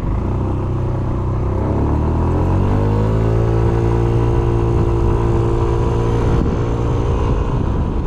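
Yamaha Smax 155 scooter's single-cylinder engine pulling away under throttle: its pitch rises for the first few seconds, then holds steady as the belt-drive automatic keeps the revs up while speed builds. The steady tone breaks off about six seconds in.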